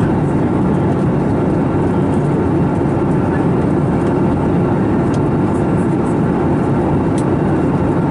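Steady in-flight cabin noise of an Airbus A321neo: rushing airflow and the drone of its CFM LEAP-1A engines, unbroken throughout. A few faint clicks come about five to seven seconds in.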